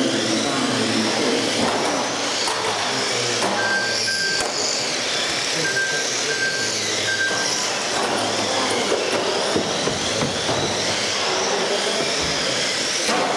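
Several electric radio-controlled touring cars racing on a carpet track, their motors whining and rising and falling in pitch as they pass. Short, high, steady electronic beeps sound a few times, around four seconds in and again between six and seven seconds.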